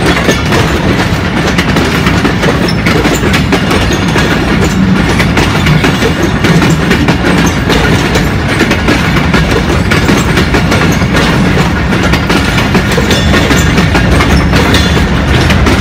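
Freight train of steel tank wagons rolling past close by: a steady, loud rumble of wheels on the rails, with a continuous clickety-clack of wheels over the rail joints.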